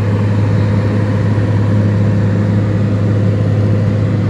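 Steady cabin noise of a car driving at highway speed: a constant low drone from engine and tyres with road rush, even and unbroken.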